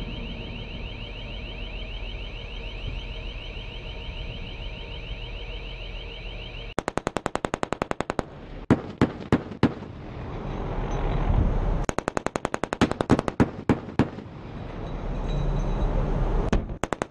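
A steady, rapidly pulsing high tone for the first several seconds. Then a ship's deck-mounted automatic gun fires: a quick burst, a few single shots, a longer burst, and another burst starting at the very end, with a low rushing noise swelling between them.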